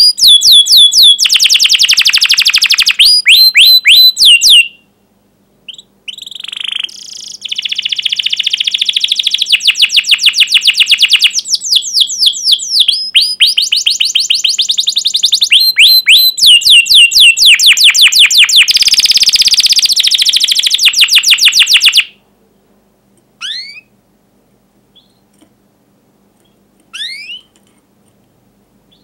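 Domestic canary singing: long runs of rapid, repeated, sharp down-slurred chirps ("cuit cuit") and fast rolling trills. The song breaks off briefly about five seconds in and stops about 22 seconds in, after which only a couple of single sharp chirps are heard.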